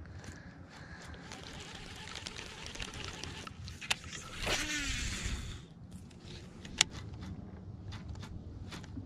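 Cast with a baitcasting reel. A click sounds just before the cast, then a rush of whirring about four seconds in that falls steadily in pitch as the spool spins out line and slows. A single sharp click from the reel follows a couple of seconds later, then faint ticking.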